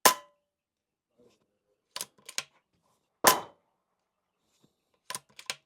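Epic Two PCP air rifle fired twice, about three seconds apart, each shot a sharp crack with a brief ring. Before each follow-up shot comes a quick set of three mechanical clicks, the rifle's action being cycled to chamber the next slug.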